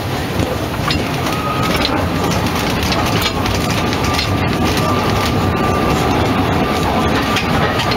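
Narrow-gauge steam locomotive and its train running slowly, heard from just behind the cab: a steady rumble and rattle of the wheels and motion, with a faint steady high tone from about a second in.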